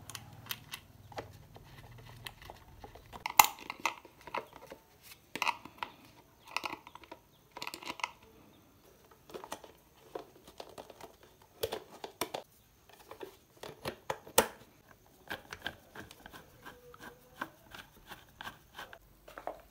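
Irregular light clicks, knocks and rubbing of hands handling a plastic fan motor housing as a speed controller module is pushed into its mounting hole.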